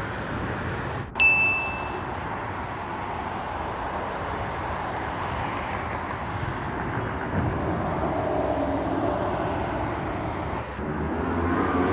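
Steady traffic noise from cars on a busy city road. About a second in there is a single bright ding, the chime of a subscribe-button overlay.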